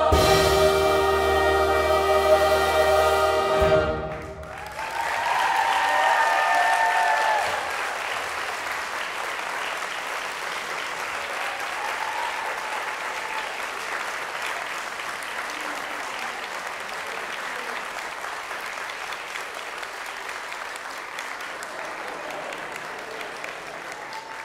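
A large mixed choir with band holds a final chord, which cuts off after about four seconds. The audience then breaks into steady applause, with a few whoops and cheers at its start.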